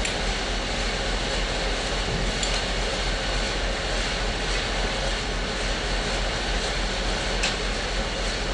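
Sawmill machinery running steadily: a continuous mechanical drone with a low hum underneath and a few faint ticks.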